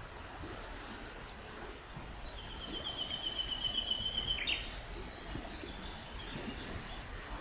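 A small songbird sings a rapid trill of evenly repeated notes lasting about two seconds, ending in a short falling note, over a steady background rush.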